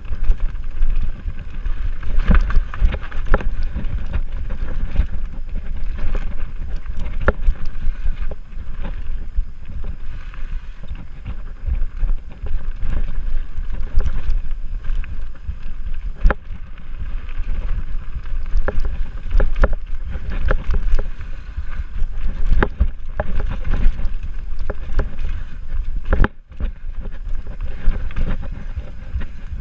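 Mountain bike descending a dirt forest trail at speed: tyres rumbling over the ground and the bike rattling and clattering with frequent sharp knocks over roots and rocks, with wind buffeting the microphone. The sound drops out briefly about 26 seconds in.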